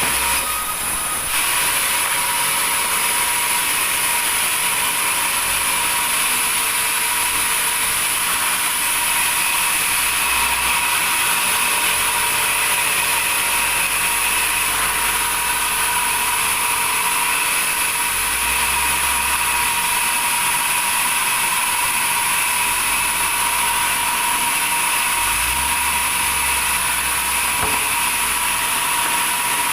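Sawmill saw running and cutting through wood: a steady, loud, high-pitched whine over a hiss, with a low rumble every several seconds.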